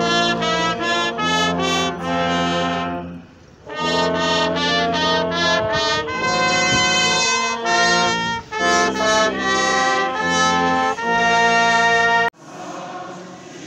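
Brass band playing a slow melody in sustained chords, with a short break about three and a half seconds in. The playing cuts off abruptly near the end, leaving quieter background noise.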